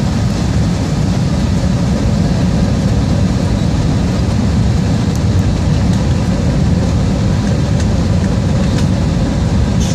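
Steady low rumble of an Airbus A321's engines and airflow, heard inside the passenger cabin during the approach, with a faint steady hum and a few faint clicks.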